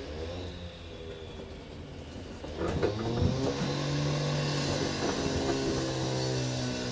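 A motor hum, like an engine running, comes in about three seconds in, just after a knock, and then holds steady.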